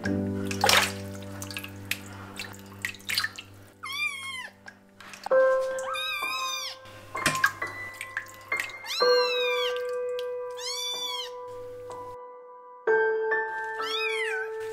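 Young kitten meowing about five times while being bathed in a sink, each cry rising then falling in pitch. Background music with long held notes plays underneath.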